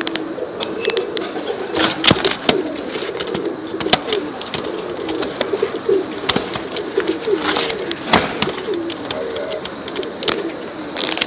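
Tippler pigeons cooing in a loft, many birds at once with overlapping calls, and scattered sharp clicks and knocks throughout.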